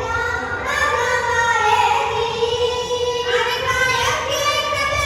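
Sikh devotional hymn singing (kirtan): a high voice holding long notes that slide slowly up and down, with musical accompaniment.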